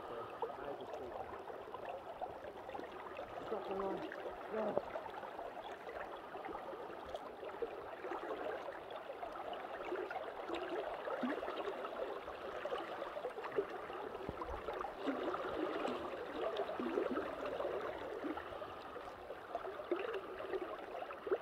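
River current gurgling and rippling steadily, a continuous babble of moving water.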